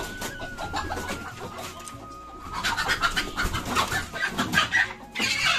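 Chickens clucking and squawking as a rooster is chased to be caught, growing busier and louder about halfway through with a loud squawk near the end.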